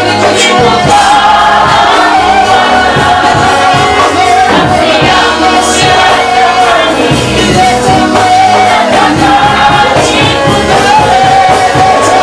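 Church worship team and congregation singing a gospel song together, with instrumental backing that has a steady beat.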